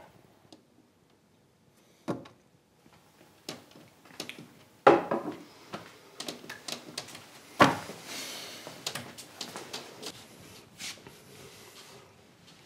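Knocks and clatter of hard objects being handled: sharp bangs about two, five and seven and a half seconds in, the one at five the loudest, with light clicks and taps between.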